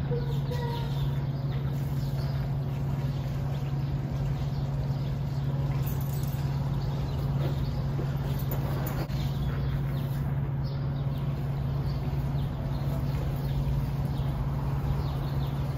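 Outdoor backyard ambience: a steady low hum throughout, with a few faint bird chirps.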